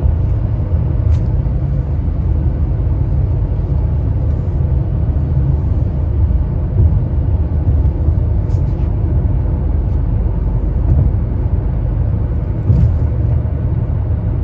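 Steady low road rumble of a car on the move, heard from inside the car.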